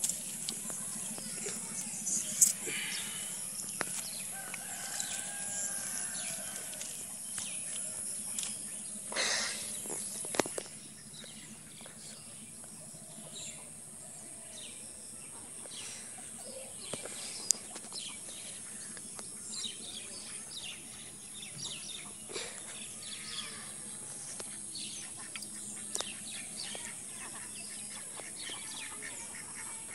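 Rural outdoor ambience: scattered bird chirps and calls over a steady high insect buzz that stops about a third of the way in. Short knocks and rustles come from a fishing net and bowl being handled, two of them louder just before the buzz stops.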